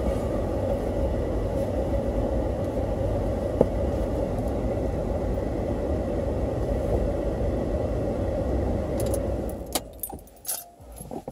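Vehicle engine running steadily, heard from inside the cab, with a single click about three and a half seconds in. Near the end the engine cuts off suddenly and keys jangle, as the ignition is switched off and the keys pulled.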